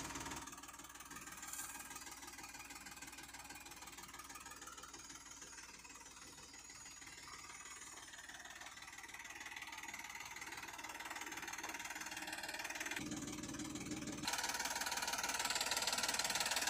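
New Holland 3230 tractor's diesel engine idling steadily, growing louder in the last few seconds.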